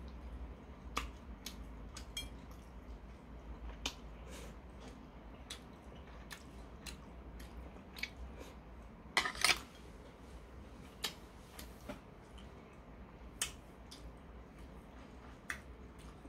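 Quiet eating sounds: a man chewing a mouthful of stir-fried pork and rice, with scattered short clicks and smacks from the metal chopsticks, the ceramic plate and his mouth. The loudest cluster of clicks comes a little past halfway.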